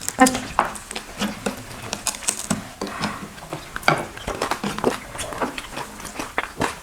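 Close-up eating noises: irregular clicks, taps and wet smacks of someone eating watered rice and fried fish by hand from a plate, with the odd clink of the dish.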